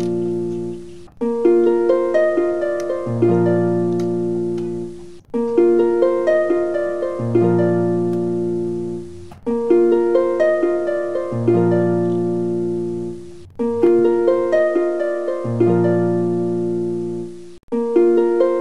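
Background music: a short plucked-string tune that loops about every four seconds, with a brief break before each repeat.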